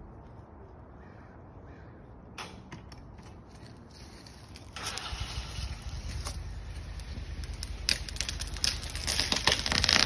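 Alder tree being pulled over on a GRCS rope winch. A single click about two and a half seconds in, then from about five seconds a crackle of clicks and creaks that grows steadily louder as the tree starts to fall near the end.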